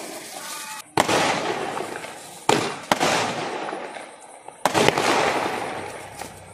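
Aerial fireworks bursting overhead: a run of sharp bangs, about one every second or two, two of them close together. Each bang trails off in a noisy tail that fades over a second or two.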